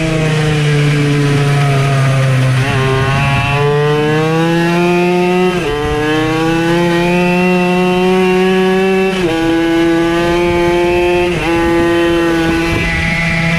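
Triumph Daytona 675's three-cylinder engine pulling hard. The pitch climbs through each gear, then drops sharply at several upshifts, and falls back slightly near the end.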